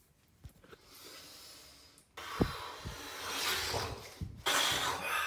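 Rustling, breathy noise close to a phone's microphone as the phone is handled and brought up against the head, with a few soft knocks. It gets much louder about two seconds in, dips briefly, and comes back loud near the end.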